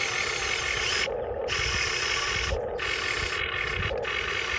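Electric motors of a metal 1:20 Diecast Masters CAT 330D L RC excavator whining as the arm and bucket move. The whine cuts out briefly about a second in and twice more as the motion changes.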